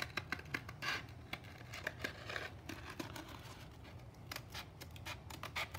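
Scissors cutting through a sheet of abrasive scooter grip tape: a series of short, irregular snips as the blades work along a curved line.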